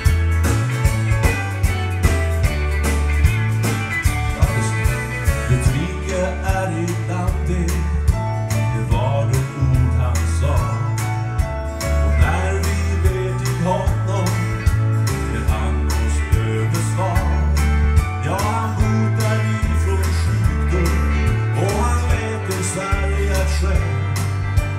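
Country gospel music with a steady bass line and guitar.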